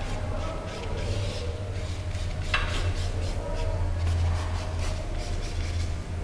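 Paintbrush strokes rubbing and scratching over the painting, going over an area again so the colour is even, against a steady low hum. There is one sharper tick about two and a half seconds in.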